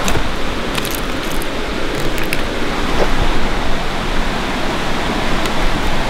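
Steady rushing water, a loud even hiss, with a few faint clicks over it.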